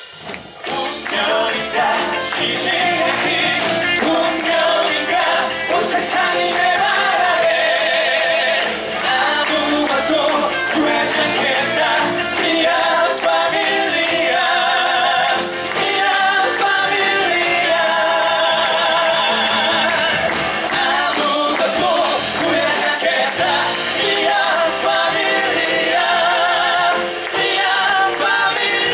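Live musical-theatre singing with accompaniment: sustained sung lines with a wavering vibrato, starting right after a brief lull at the very beginning.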